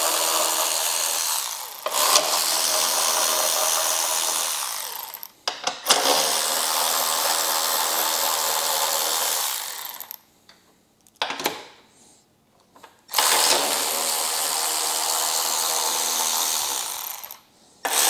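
Milwaukee cordless battery ratchet with a 13 mm socket spinning bolts out. The motor whines steadily in runs of several seconds each, with short pauses as it moves from bolt to bolt.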